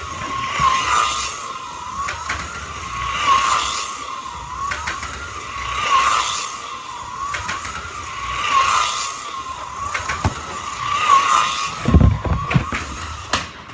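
Electric motors of toy slot cars whining as they run round a plastic track, the wavering whine swelling about every two and a half seconds as a car laps past. A low thump near the end.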